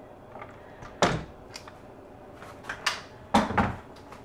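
A string of hard knocks and clicks. The loudest comes about a second in, with a close pair about three and a half seconds in. It is an Instant Pot electric pressure cooker's lid being unlocked and lifted off.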